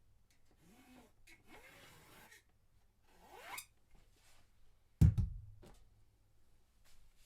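Building materials and tools being handled during cabinet framing: rubbing and scraping, one scrape rising in pitch, then a single sharp, heavy knock about five seconds in, the loudest sound.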